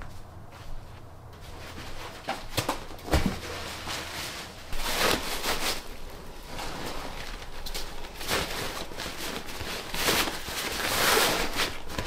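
Nylon hiking backpack rustling as gear is stuffed into it by hand, the rustle getting busier in the second half, after a few soft knocks in the first few seconds.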